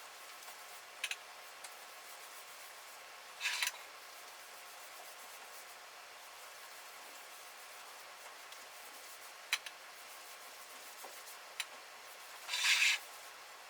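Two short rubbing strokes, the second a little longer and louder near the end, with a few light clicks between them, over a faint steady room hum.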